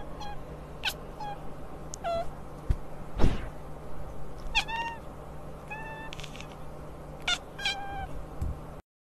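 A cat making about ten short, high chirping meows, some in quick runs of two or three. A single thump a little over three seconds in is the loudest sound.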